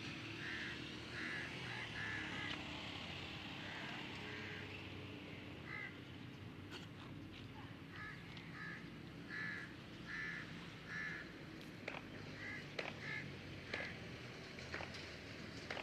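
Crows cawing again and again in short calls, singly or in runs of two or three, over a low steady hum.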